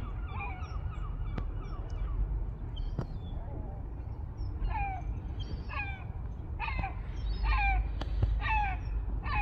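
A flock of gulls calling: short falling cries, sparse at first, then louder and about one a second from halfway on, over a steady low rumble.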